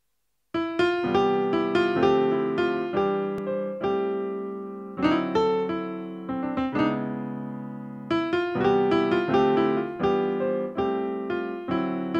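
Piano playing a cheerful melody over chords in the style of an American musical-comedy tune, starting about half a second in. Each note is struck and fades.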